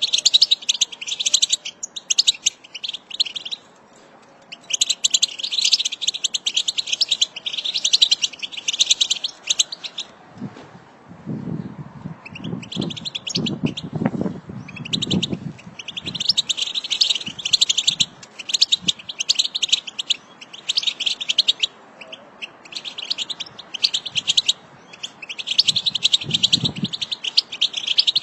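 European goldfinch singing its rapid, chattering 'batbata' song in long bursts of fast twittering, broken by short pauses. Some low thumps sound under it from about ten to fifteen seconds in and again near the end.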